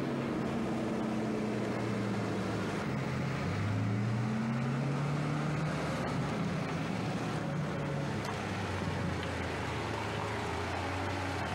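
Engine of a Mitsubishi Pajero SUV driving slowly up a driveway and pulling in. Its note rises about three to four seconds in, then runs steadily.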